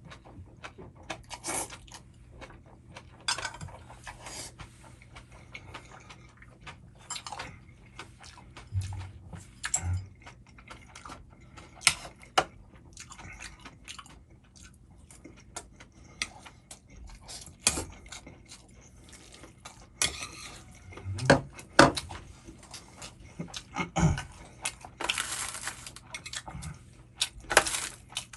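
Eating sounds over a bowl of Chapagetti, the instant black-bean noodles: utensils click, tap and scrape against the dish at irregular moments, mixed with mouth sounds of eating.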